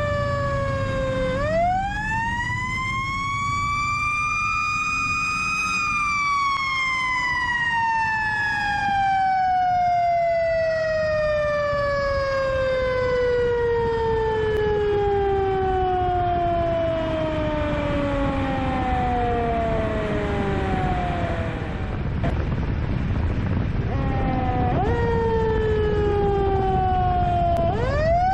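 Fire truck siren sounding while the rig drives: its pitch rises for about five seconds, then slides slowly down for some fifteen seconds, and near the end it climbs again in two short rises. A steady low rumble runs underneath.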